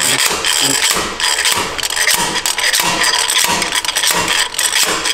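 Slide hammer on a diesel injector puller worked up and down hard, a rapid run of metallic clanks and scraping. The seized injector does not move.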